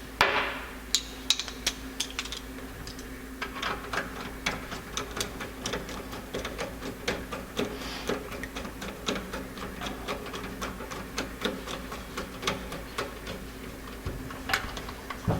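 Small metal clicks and taps from hand tools and parts as linkage pieces are fitted to a single-barrel carburetor's throttle shaft and its retaining screw is driven back in, at a few clicks a second in places, over a steady low hum.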